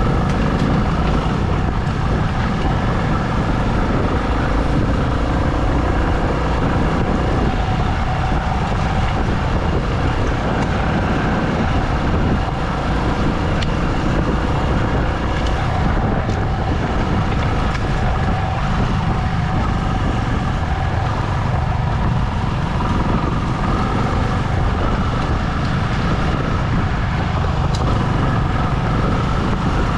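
A vehicle engine running steadily while driving along, mixed with constant rumbling road and wind noise.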